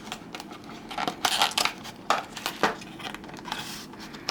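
Phone case packaging being cut open and pulled apart by hand: scattered bursts of crinkling and tearing with sharp clicks.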